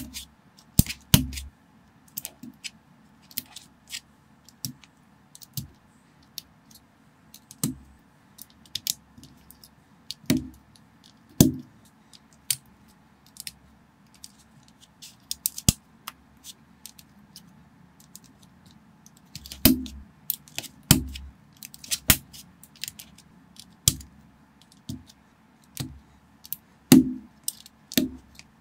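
Plastic Lego bricks and plates clicking as they are handled and pressed together by hand: irregular sharp clicks, a few louder ones with a dull knock.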